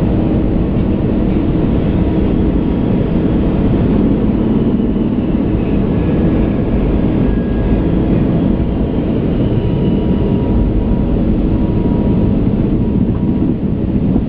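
Airbus A380 flight deck during the climb after takeoff: a steady, loud low rumble of airflow and engine noise, with faint steady tones in it.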